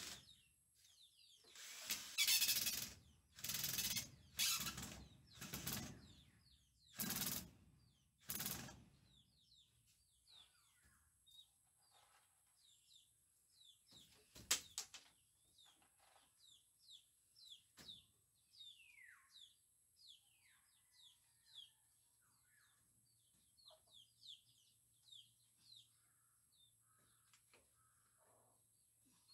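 A woven bamboo wall panel rustling and scraping against its frame in about seven loud bursts as it is pushed and worked into place. Then come many short bird chirps, with one sharp double knock about halfway through.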